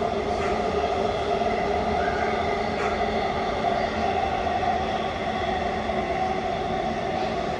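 Siemens Inspiro metro train running, heard from inside the passenger car: a steady, even rumble of wheels and running gear on the rails.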